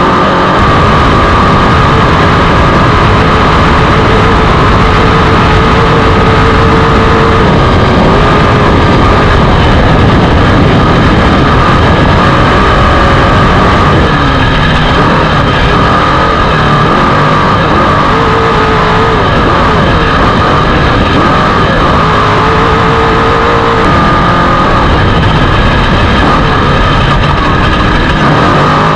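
Off-road race vehicle's engine running hard and without a break, its revs rising and falling, under a loud, steady din of driving noise.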